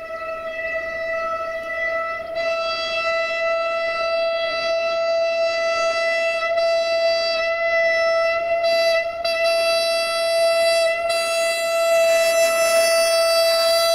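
Train horn held on one long, unbroken steady note, growing gradually louder.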